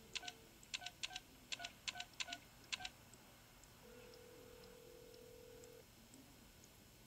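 A telephone dial tone cuts off as a number is punched in on a corded touch-tone phone, giving a quick string of keypad beeps. After a short pause, the ringback tone sounds once for about two seconds.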